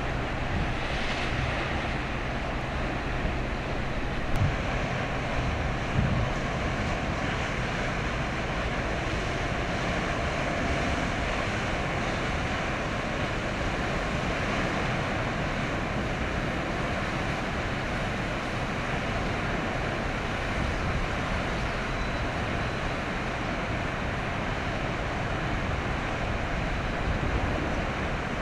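Steady wind on the microphone and wave noise, with a low steady drone beneath. There are two brief bumps about four and six seconds in.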